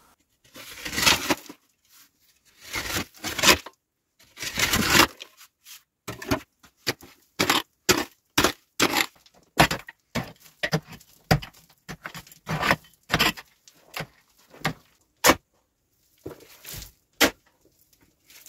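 Digging into earth with a pick: a few longer scraping, crumbling passes first, then a run of short sharp strikes into the packed soil, about two a second, as dirt breaks loose.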